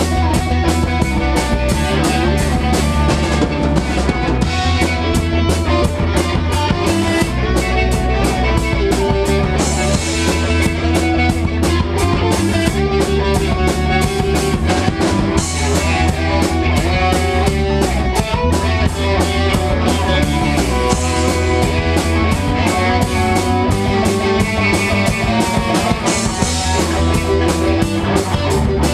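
A live rock band playing loudly through a rehearsal room: drum kit keeping a steady beat under electric guitar and bass.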